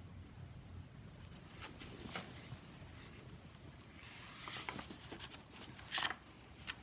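Faint handling sounds of a hardcover picture book being lowered and a page turned: a few soft clicks, then a papery rustle about four seconds in and a sharper click near the end.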